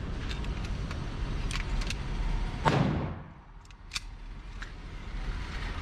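Steady low rumble with a few light clicks, and one sharp bang about two and a half seconds in that rings briefly off the hard walls of an indoor shooting range.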